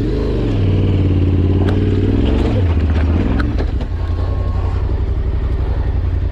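Yamaha Ténéré 700's 689 cc parallel-twin engine pulling up a steep, rocky climb. The revs rise at the start, hold steady, dip and climb again about three seconds in, then settle lower.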